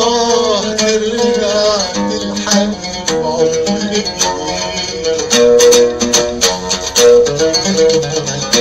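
Instrumental passage of an Arabic song: a plucked-string melody over held notes, with sharp percussive strikes that come thicker in the second half.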